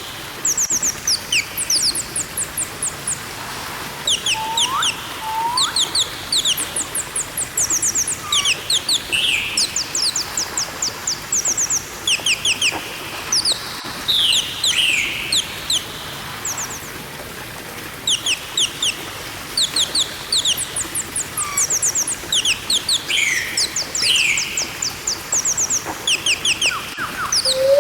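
Parrot chirping in quick runs of short, high-pitched chirps, with a few rising whistled calls mixed in.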